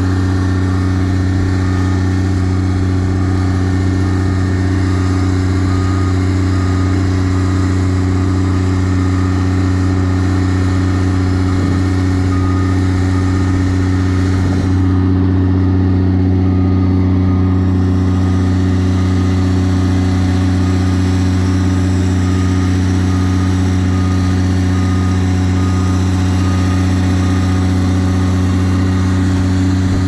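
Diesel engine of a tracked asphalt paver running at a steady speed while the paver is loaded onto a lowboy trailer. A faint rapid beeping, like a travel alarm, sounds over it for the first several seconds.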